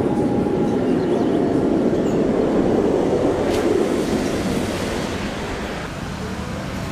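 Airplane noise: a loud, steady rumble that eases off over the last few seconds.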